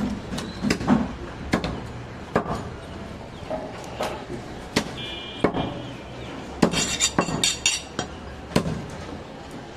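Heavy butcher's chopper striking meat and bone on a wooden chopping block, a sharp knock roughly every second. A quick run of metallic clinks comes near the end.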